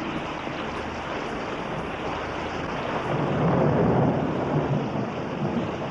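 Steady heavy downpour, with a roll of thunder building about three seconds in, peaking and then fading away.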